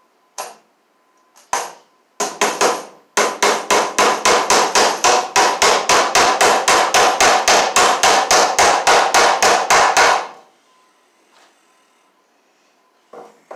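Hammer nailing a plastic electrical box to a wooden wall girt: a few single taps, then a steady run of quick blows, about three or four a second, that stops about ten seconds in.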